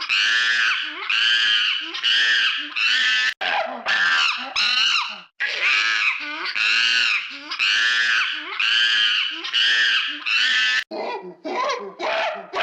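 Monkey screaming: a rapid series of short, high-pitched arched cries, about one to two a second, with brief breaks about five seconds in and again near the end.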